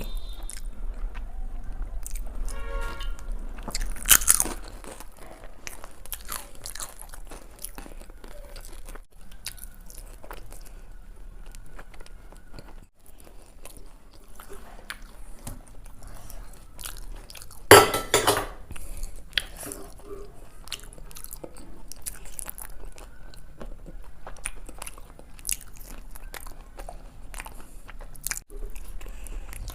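Close-miked mukbang eating: chewing with crunchy bites, with a couple of louder bursts about four seconds in and again near the middle.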